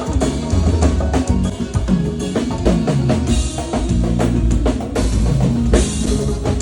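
Drums and percussion playing a groove with a band, sharp drum hits over low sliding bass notes, with a cymbal-like wash about six seconds in.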